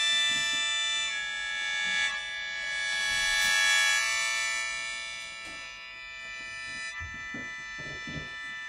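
Shō, the Japanese free-reed mouth organ, sustaining dense clusters of many steady tones, the chord shifting every second or two. It swells to its loudest about halfway through and then softens.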